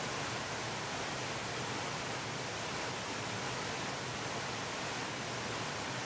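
Steady, even rush of whitewater flowing fast over a rocky riverbed.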